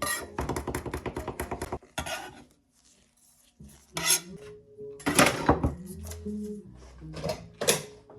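Kitchen utensils and dishes clattering: a quick run of sharp taps, about eight a second, for nearly two seconds, then several separate knocks and clinks.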